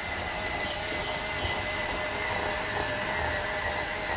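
Battery-powered EZTec toy train's electric motor and gears whirring as it runs around its plastic track, a steady high whine with no whistle or chuffing effects.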